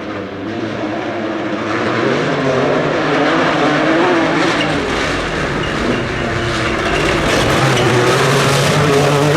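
Rally car engine at high revs, its pitch rising and falling with throttle and gear changes, over a steady rushing noise of tyres on gravel; it grows louder over the first couple of seconds.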